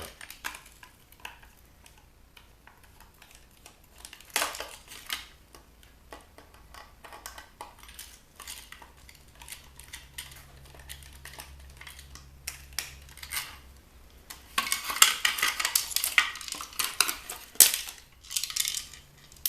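Plastic and metal parts of a bug zapper's housing clicking and clattering as it is pried apart and handled by hand. Scattered knocks give way to a longer spell of dense rattling about fifteen seconds in.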